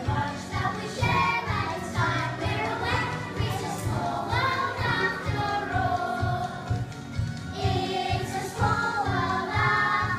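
A children's school choir singing in unison to a backing track with a steady beat.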